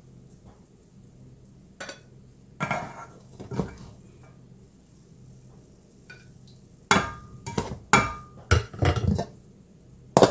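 Utensils and dishes clinking and knocking as food is served onto a plate: a few separate knocks, then a quick run of clinks, some briefly ringing, in the second half.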